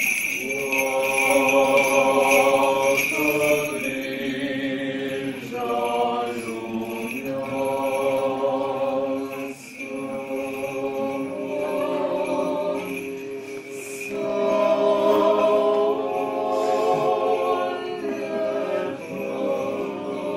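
A vocal group singing Orthodox liturgical chant in several sustained phrases. The small bells of a swung censer jingle as it starts.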